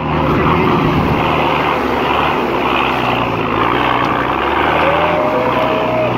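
Off-road vehicle's engine droning steadily under way along a muddy track, heard from on top of the vehicle with a steady rush of wind and road noise. A thin steady tone sounds for about a second near the end.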